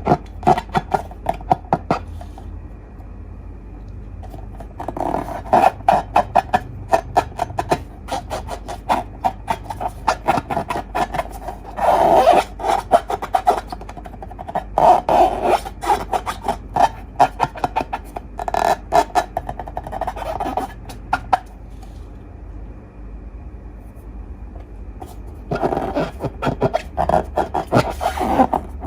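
Slime being squeezed and worked by hand, crackling with rapid small clicks and pops in bursts of several seconds, with quieter pauses between them.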